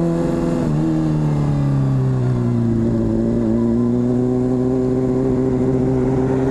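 Honda CBR600RR's inline-four engine with a slip-on exhaust, running as the motorcycle rides along, over a steady hiss. The engine note drops about a second in, then climbs slowly.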